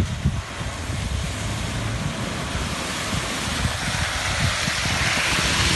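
Maruti Suzuki Gypsy splashing through a muddy puddle with its engine running. A rushing noise of water and mud builds as it comes close.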